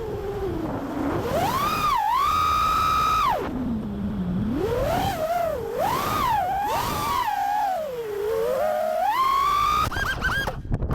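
FPV quadcopter's brushless motors whining, the pitch gliding up and down with the throttle and holding level in places. Near the end there are a few quick stuttering blips before the sound cuts off.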